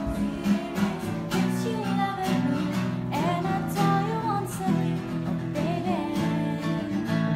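Acoustic guitar strummed with a woman singing a melody over it.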